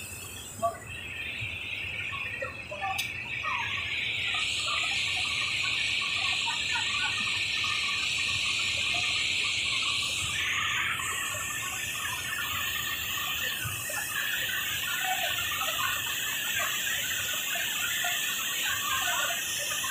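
Rushing floodwater of a waterfall pouring over rock, a steady high hiss that settles a little lower about ten seconds in, with faint scattered chirps under it.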